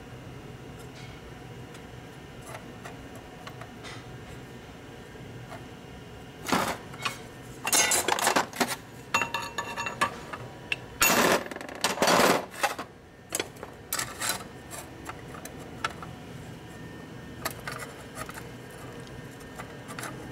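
Hammer striking a chisel against a steel motorcycle clutch basket: a cluster of sharp metal blows and scrapes with ringing, from about six to fourteen seconds in, over a low shop hum. The work adjusts the basket so the clutch plates fit and slide.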